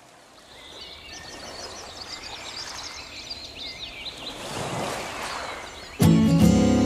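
Small birds chirping over a wash of noise that fades in and swells about five seconds in, then music comes in suddenly with a loud sustained chord about six seconds in.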